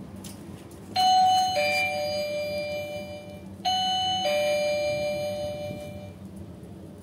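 Two-tone ding-dong doorbell chime sounding twice: a higher note, then a lower note that rings on and fades. The pair repeats about two and a half seconds later.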